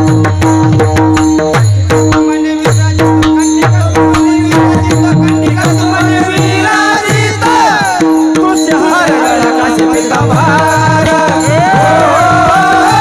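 Devotional kirtan music: a hand drum playing a steady rhythm with sliding bass strokes, jingling hand cymbals and a held drone note. A voice joins in singing about halfway through.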